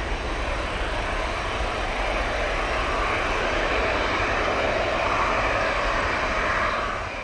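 Twin-engine jet airliner's engines at takeoff thrust as it lifts off and climbs away: a loud, steady noise with a deep rumble beneath, fading out near the end.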